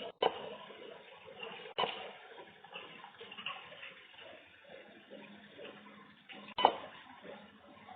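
Water running and splashing unevenly, with a few sharp knocks, the loudest near the end.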